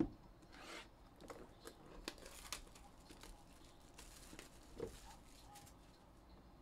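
Faint crinkling and tearing of plastic wrapping being pulled off a sealed trading-card hobby box as it is handled, with one soft knock of the box about five seconds in.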